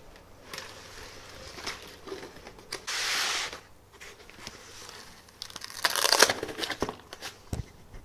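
Packing material being pulled from a box: a short tearing hiss about three seconds in, then a louder stretch of crinkling and crackling around six seconds, with small rustles and clicks between.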